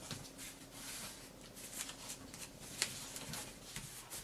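Origami paper being folded and creased by hand: soft rustling and rubbing, with one sharp crackle of the paper a little under three seconds in.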